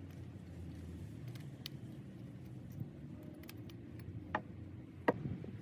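Small metal clicks and light clinks of water-pump pliers and an L-shaped socket wrench working on the burner head of an old blow torch, with two sharper clinks near the end, over a low steady hum.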